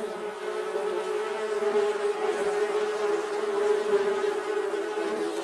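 Bees buzzing: a steady droning hum with a low fundamental and many overtones, wavering slightly in pitch.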